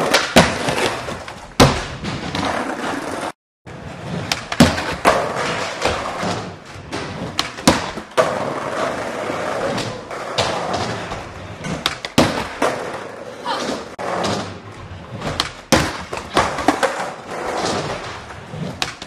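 Skateboard wheels rolling on a hard floor, with many sharp clacks and thuds of the board popping, hitting obstacles and landing. The sound cuts out briefly about three and a half seconds in.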